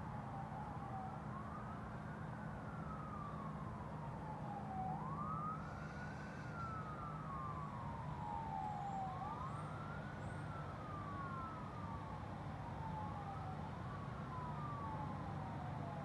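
Emergency-vehicle siren wailing: each cycle rises quickly and falls slowly, about every four seconds, over a steady low hum.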